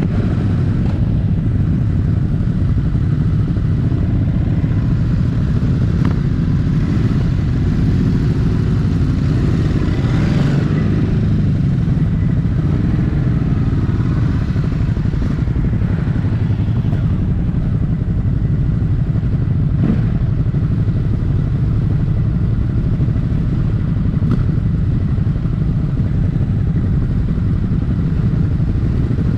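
Ducati Hypermotard 950's 937 cc Testastretta V-twin through its stock exhaust, running steadily under way, its note rising and falling a little between about 7 and 14 seconds in. A few short clicks stand out around 6, 20 and 24 seconds in.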